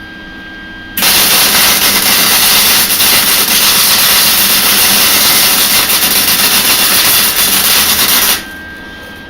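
Lincoln Electric MIG welder laying a weld bead: a loud, steady crackling hiss that starts about a second in and cuts off about seven seconds later. The crackle is taken as a sign that the wire speed is set too high.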